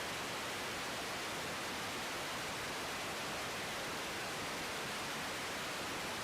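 Steady radio hiss from an air traffic control receiver between transmissions, an even static with no voice on the channel.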